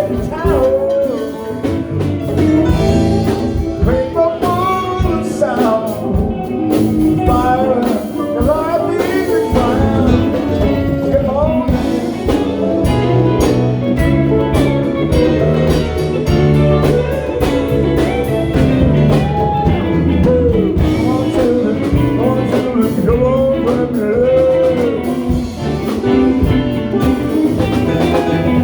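A band playing live music in a ragtime-blues style, with guitar and a singing voice over it.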